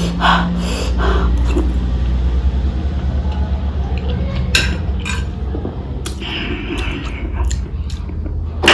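Eating sounds close to the microphone: chewing boiled eggs and pickle, with several sharp clinks of dishes, the loudest near the end, over a steady low hum.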